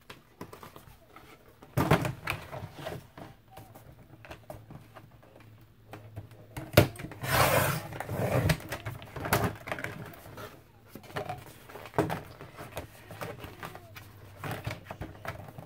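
Cardboard from a cereal box being handled and laid on a plastic paper trimmer: scattered knocks and taps, with a louder scraping rustle of cardboard lasting about a second and a half near the middle.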